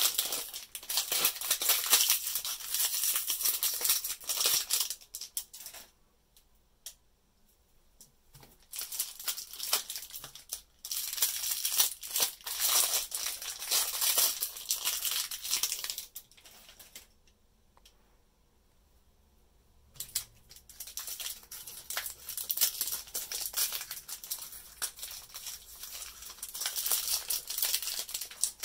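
Crinkly plastic wrapper of a L.O.L. Surprise! blind bag being handled and pulled open by hand, crackling in three long stretches with two short pauses between them.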